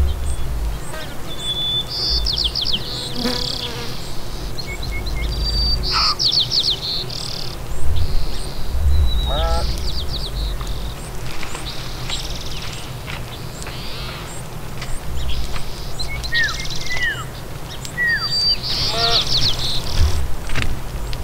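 Small birds singing and calling: repeated high trills and several short falling whistles, with a low rumble on the microphone that comes and goes.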